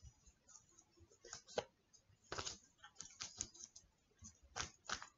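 A tarot deck being shuffled and cut by hand: quiet, irregular clicks and flicks of card edges tapping and sliding together.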